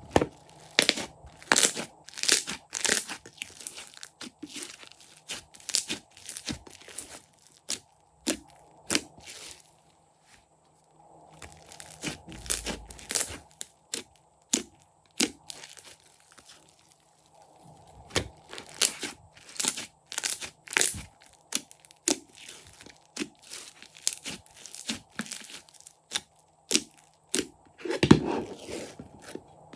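Crunchy slime being squeezed and worked by hand, giving irregular sharp crackles and crunches. There is a short pause about a third of the way through, and a louder crunch near the end.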